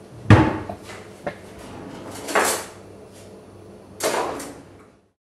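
Kitchen cupboard and drawer being worked: a loud thump of a door shutting, a small click, then two longer scraping slides as a drawer is handled and a chopping board taken out. The sound cuts off suddenly near the end.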